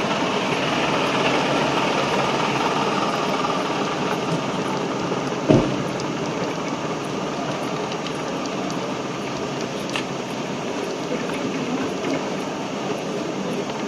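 City street noise with vehicle engines running steadily, and one short thump about five and a half seconds in.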